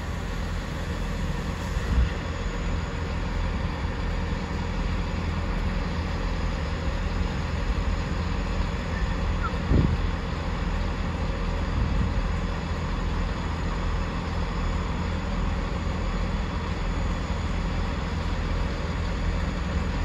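Diesel multiple unit running with a steady low engine rumble and hum.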